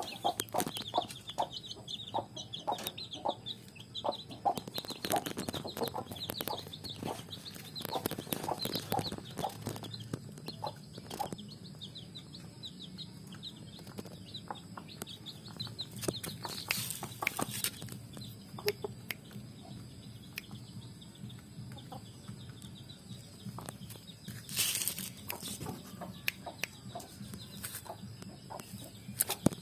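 Free-range village chickens (ayam kampung) clucking on and off, with short, sharp sounds scattered throughout and a run of high chirps in the first few seconds.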